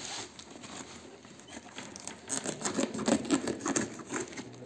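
Hands working at the plastic packing tape and cardboard of a parcel box: rustling at first, then a quick run of small crackles and clicks from about two seconds in as the tape is worked loose.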